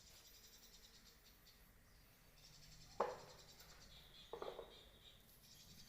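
Near silence with faint insects chirring in a steady high buzz, broken by a single sharp knock about three seconds in and a brief scratchy rustle about a second later.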